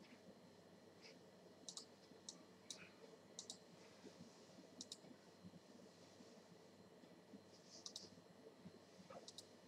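Faint computer mouse clicks: scattered single clicks and several quick double-clicks, over quiet room tone.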